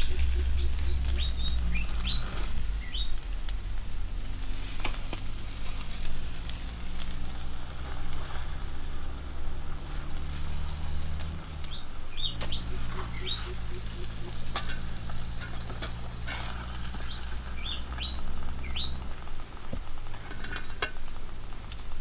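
Whole fish sizzling on a wire grill over wood-fire embers, with scattered clicks of tongs and metal. Birds chirp in short bursts near the start, in the middle and later on, over a low steady hum that stops near the end.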